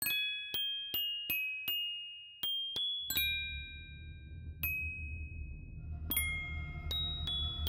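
Background music: a slow melody of single tinkling bell-like notes, each ringing briefly. A low steady drone comes in under it about three seconds in.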